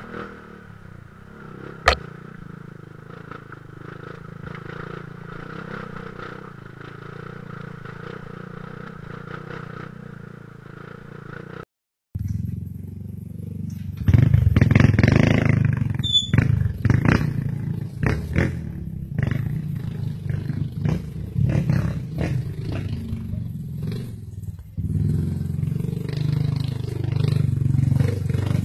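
Dirt bike engine running steadily on a rocky trail, with one sharp knock about two seconds in. After a brief dropout near the middle, the engine is louder, with rocks clattering and knocking against the bike.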